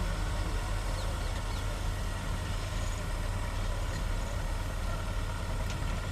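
Heavy diesel engines of an excavator and a wheel loader running steadily: a continuous low engine drone with no change in pitch.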